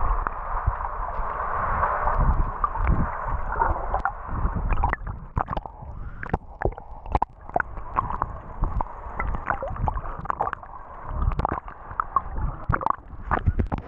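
Muffled water gurgling and sloshing around a camera in the water, with many sharp knocks and splashes scattered through it from a few seconds in.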